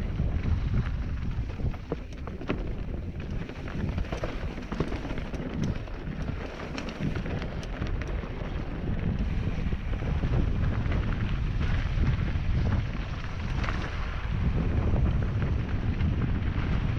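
Mountain bike descending a rough dirt singletrack, recorded on a camera that rides along: a steady low rumble of wind on the microphone and tyres on dirt, broken by frequent clicks and knocks as the bike rattles over roots and stones.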